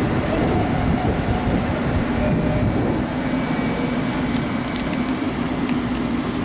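Long Island Rail Road electric train running, a steady rumble with a constant hum and a few faint clicks from the rails.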